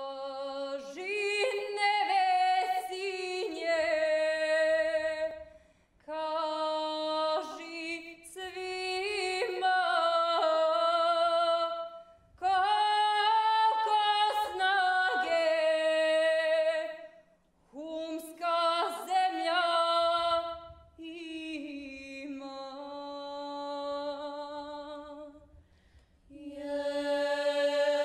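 A women's ethno vocal group singing a traditional Herzegovinian folk song a cappella, several voices together in long sung phrases with short breaks between them.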